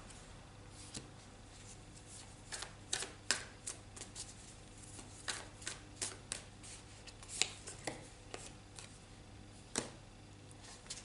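Tarot cards being handled and laid down on a wooden table: a scattering of soft, irregular card flicks and taps.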